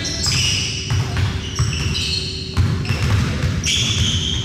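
A basketball bouncing on a gym's hardwood court during play, with short high squeaks and players' voices.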